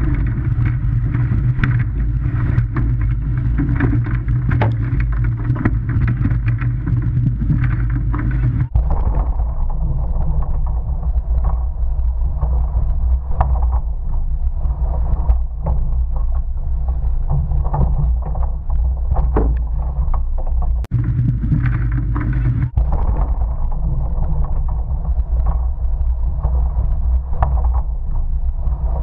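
Rushing wind and water noise on a camera mounted low inside a surf boat, heavy rumble with scattered short knocks, changing abruptly a few times.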